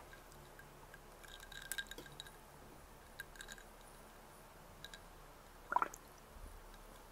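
Faint handling sounds of small objects: scattered light clicks and taps, and one short squeak a little before six seconds in.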